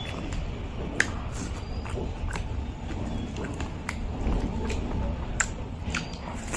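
Fingers mixing rice with egg curry on a plate, wet squishing with scattered sharp clicks; near the end a handful of rice goes into the mouth.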